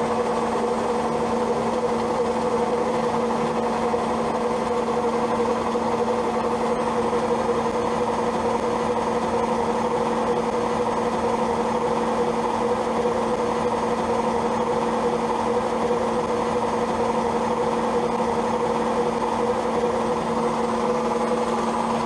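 Old Zanussi automatic washing machine on its spin cycle, giving a steady, unbroken hum with a strong even pitch. The whole machine is vibrating and humming more than its owner thinks it should, and he doesn't know why.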